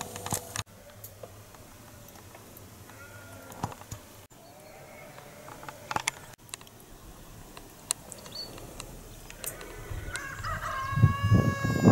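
A rooster crows once near the end, a single long held call. Scattered light clicks come before it, and low thuds sound under the crow.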